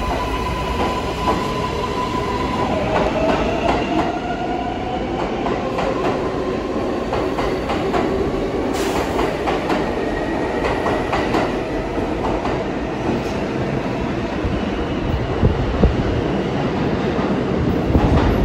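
New York City Subway R142-series train running in the station: the traction motors whine in several tones that hold steady and then glide in pitch, over a steady rumble, with the wheels clacking now and then on the rail joints.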